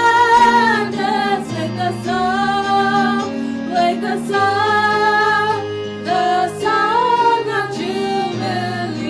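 Women singing a hymn in long, held notes over instrumental accompaniment.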